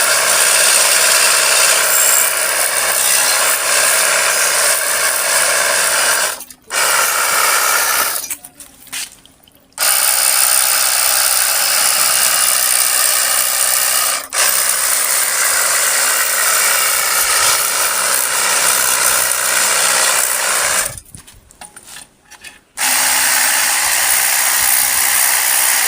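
Pressure washer spraying a jet of water onto a motorcycle: a loud, steady hiss with the pump running, stopping briefly three times.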